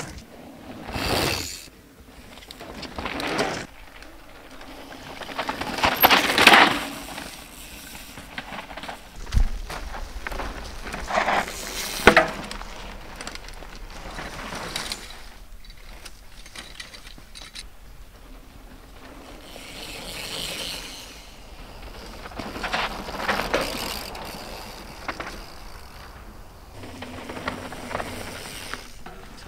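Mountain bikes riding past on a dry dirt trail, their tyres rushing over dirt with bike mechanical rattle, in several passes that swell and fade. There are a couple of sharp knocks about a third of the way through.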